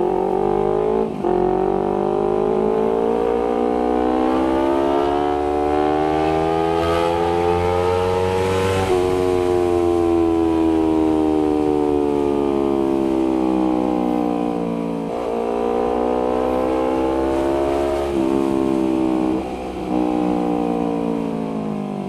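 Honda CBR250RR's parallel-twin engine through an R9 GP stainless steel exhaust, under way. The pitch climbs steadily as it accelerates for about nine seconds, drops suddenly as the throttle is closed and falls away slowly, then rises again with a couple of short dips near the end.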